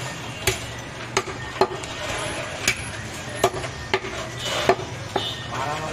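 A heavy butcher's cleaver chopping through pieces of goat head, meat and bone, against a wooden chopping block: about nine sharp chops, irregularly spaced.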